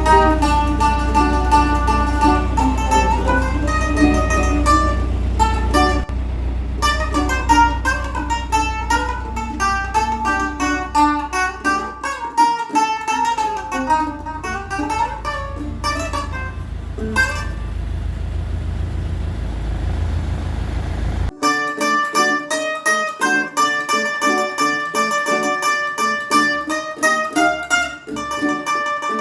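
Background music: a fast plucked-string melody with strummed chords. Under it a steady low rumble that cuts off suddenly about 21 seconds in, after which only the music is left.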